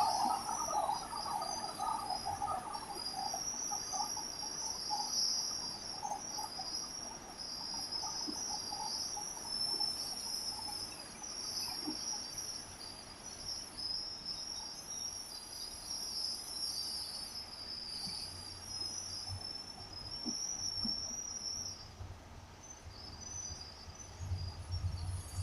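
An insect chorus trilling steadily in a high, continuous shimmer, over a faint hiss of rain.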